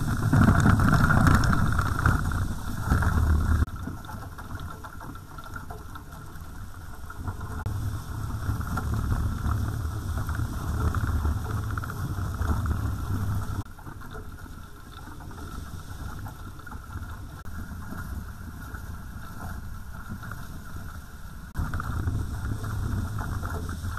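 Wind buffeting the microphone and water rushing and splashing past the hulls of a sailing catamaran moving at about 13 to 15 knots. The rush drops sharply about four seconds in, swells again, falls back around fourteen seconds in, and jumps up again near the end.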